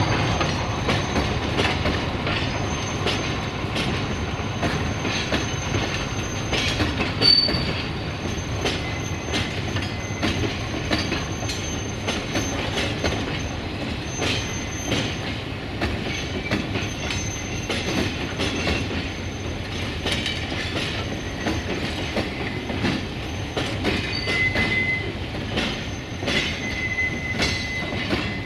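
Loaded freight hopper wagons rolling past, their wheels clattering over the rail joints with repeated clicks, while thin high-pitched wheel squeal comes and goes.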